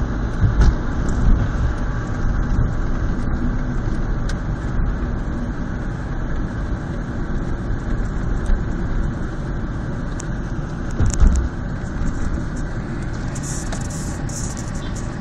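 Steady road and engine noise heard inside a moving car, a dense low rumble of tyres on the road with a few short thumps, the strongest about eleven seconds in.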